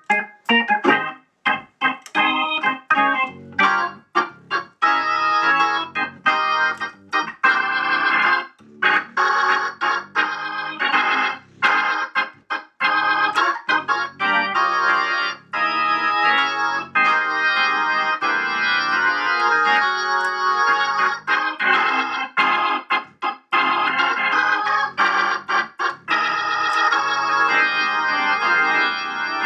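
Vintage 1963 Hammond B3 organ played through a Leslie speaker cabinet driven by a freshly rebuilt 122 amplifier. It starts suddenly with short, stabbed chords, then settles into longer held chords from about eight seconds in.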